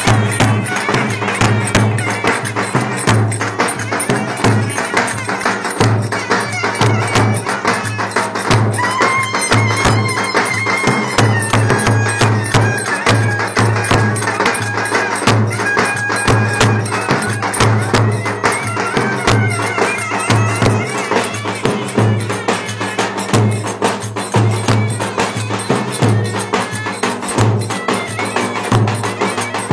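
Turkish folk dance music on two clarinets: a held, ornamented reed melody over a steady, driving low beat.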